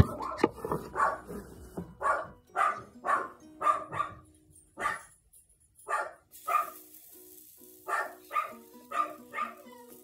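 A dog barking repeatedly in short runs, about two barks a second, over background music.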